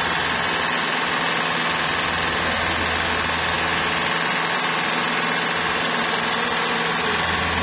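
Toyota Camry hybrid's freshly fitted replacement 2.5-litre four-cylinder engine idling steadily. It runs smoothly after the original engine was wrecked by water ingestion that broke its connecting rods.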